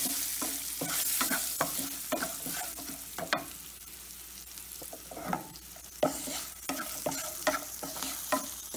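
Tempering for pongal (cashews, curry leaves, green chillies, pepper and cumin) sizzling in hot ghee and sesame oil in a non-stick kadai, stirred with a wooden spatula that scrapes and knocks against the pan at an irregular pace.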